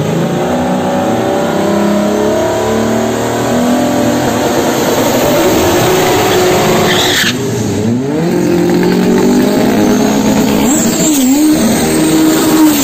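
Drag racing car engine revving hard, its pitch climbing and dropping repeatedly, over the hiss of tyres. The revs break off abruptly about seven seconds in, then climb again with a quick dip and recovery near the end.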